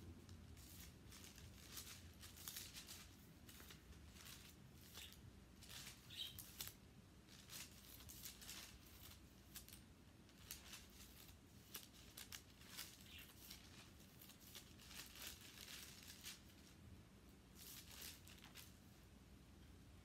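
Thin Bible pages being leafed through by hand: faint, irregular rustles and flicks of paper as pages are turned one after another.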